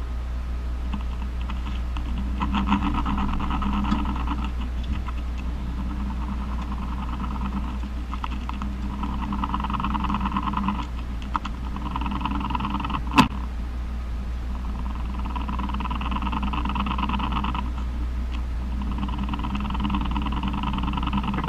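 Male jumping spider's courtship vibration song, made audible: repeated bouts of rapid ticking buzzes, each lasting a second or two, over a steady low hum. There is one sharp click about thirteen seconds in.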